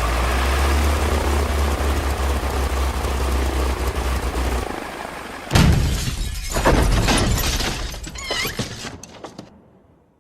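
Engine running with a steady low rumble that cuts out about halfway through, then a sudden loud crash of breaking and clattering debris that dies away over the next few seconds.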